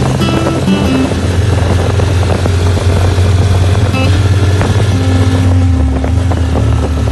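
Boat engine running steadily with a low hum that drops slightly in pitch about five and a half seconds in, as the engine slows.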